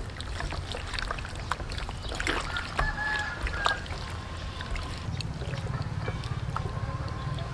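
Hands kneading and turning raw pig stomach in a sauce marinade in a plastic bowl: short, irregular wet squelches and slaps.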